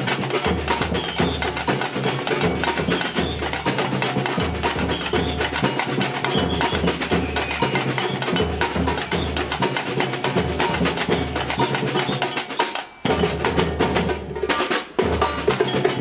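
Samba batucada drumming: deep surdo bass drums pulsing about once a second under dense snare and small hand-percussion patterns. The whole band stops sharply twice near the end in a short break before playing on.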